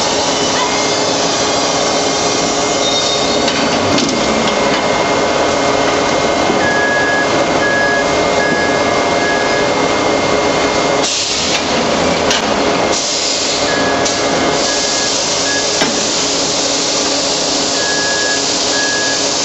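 Loud, dense metalworking-shop noise around a press forming dished steel tank heads. Short, evenly repeated warning beeps sound a third of the way in, again past the middle and near the end, with bursts of hissing in the second half.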